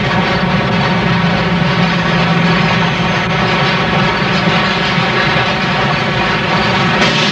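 Steam locomotives working, a loud steady mechanical rumble with no separate exhaust beats; about seven seconds in the sound changes abruptly, with less low rumble and more hiss.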